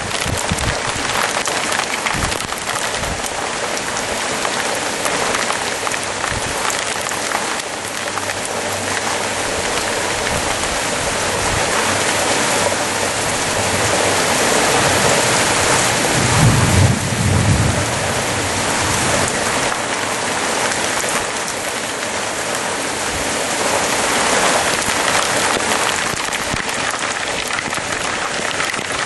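Heavy rain falling steadily in a thunderstorm, with a low rumble of thunder a little past halfway through.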